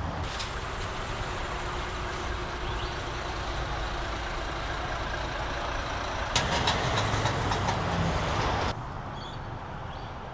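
Road traffic running steadily, with a heavy vehicle going by louder near the end before the sound drops off suddenly.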